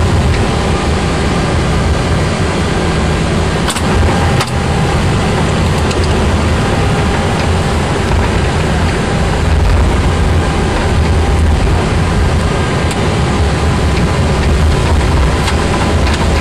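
Steady cockpit noise of an Airbus A340 rolling on the ground after landing: a low rumble with an even hiss over it, from the airliner's wheels, idling engines and cabin air. Two short clicks come about four seconds in.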